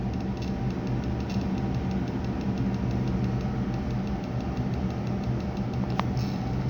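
Steady low mechanical hum made of several held low tones, with a faint, fast, even ticking over it and a single light click near the end.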